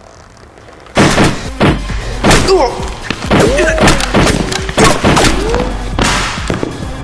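Rapid burst of pistol gunfire, many shots in quick succession starting about a second in, echoing in a large warehouse.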